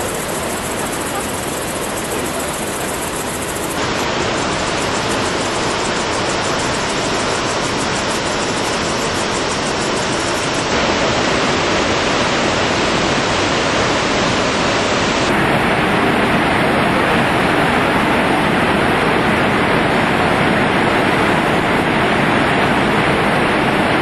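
Iguazu Falls: a loud, steady rush of heavy falling water, its sound changing abruptly about four, eleven and fifteen seconds in.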